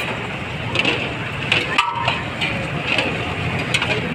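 Busy street-food stall ambience: a steady background din of traffic and voices with scattered clicks and clinks of utensils.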